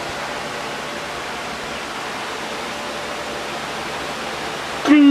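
A steady, even rushing hiss with no clear source, then music with singing starts suddenly near the end.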